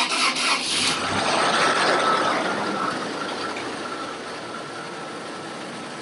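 A 2009 Toyota Tacoma's 4.0 L V6 starting up: a sudden burst as it catches, running loudest for a second or two, then easing down to a steady idle about four seconds in. The engine misfires on cylinders 2, 4 and 6 because of a clogged catalytic converter on that bank.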